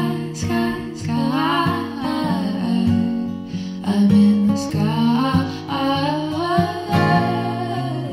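Gentle acoustic guitar song, picked guitar notes under a singing voice that glides through the melody.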